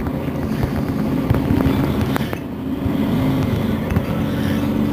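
Mercedes-Benz Citaro Facelift city bus's engine idling steadily while the bus stands at a stop, a low even hum.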